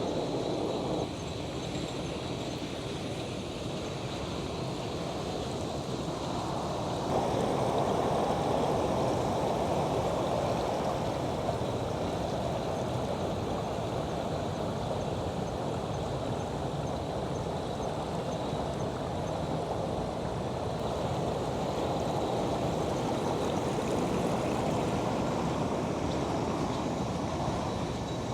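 Steady rush of running water, which shifts abruptly about a second in and gets louder about seven seconds in.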